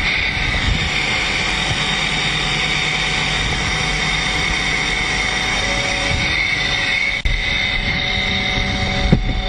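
MiG-29 jet turbine running, a steady rushing noise with a high, even whine, heard from inside the cockpit. A single knock about seven seconds in as the canopy shuts.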